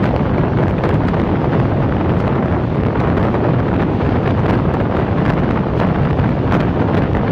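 Wind buffeting a microphone held out of a moving passenger train's window, over the steady rumble of the train running along the track, with light clicks now and then.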